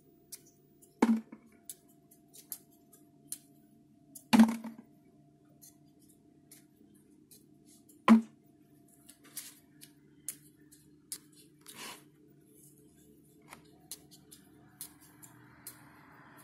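Small clicks and knocks as green olives are scored one by one with a kitchen knife and dropped into a plastic jar, with three louder knocks about a second in, after about four seconds and after about eight seconds.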